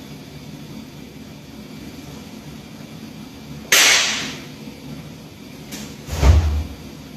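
A karate gi snapping sharply with a fast kata technique about halfway through. Near the end a foot lands heavily on the wooden dojo floor with a low thud, together with another snap of the gi.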